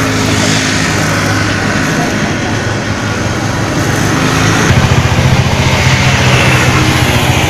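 An engine idling steadily. About two-thirds of the way in it becomes louder, with a fast, even pulse.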